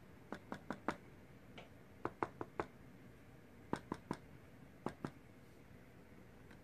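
Knuckles knocking on the closed lid of an MSI GS73VR laptop, in quick groups of two to four sharp knocks.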